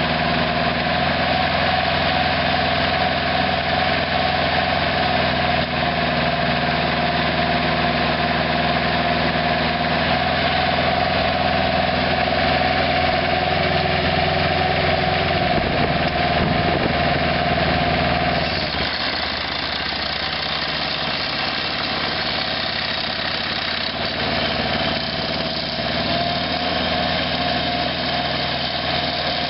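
Mitsubishi two-cylinder diesel engine of a Case Maxi-Sneaker trencher tractor idling steadily. About two-thirds of the way through, its sound shifts and becomes slightly quieter, then it keeps idling.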